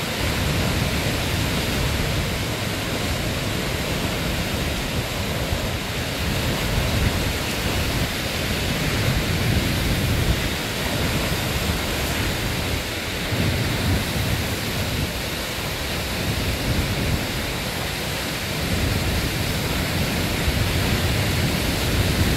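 Strong, gusty wind ahead of a hurricane buffeting the microphone in a heavy low rumble that swells and eases, over the steady rush of choppy surf washing against a seawall.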